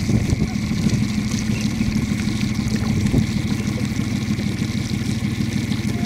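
Low, steady hum of a small boat motor idling.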